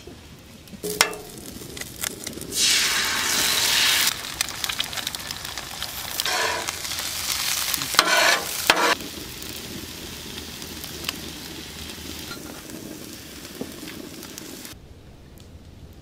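Eggs frying on a Blackstone propane flat-top griddle, worked with a metal spatula. A loud burst of sizzling comes about three seconds in, and a few short bursts and strokes follow. Steady sizzling then runs on until it stops suddenly near the end.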